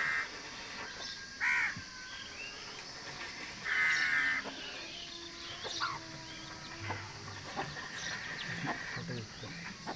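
Bird calls: two harsh caws, a short one about a second and a half in and a longer one near four seconds, with fainter chirps between them.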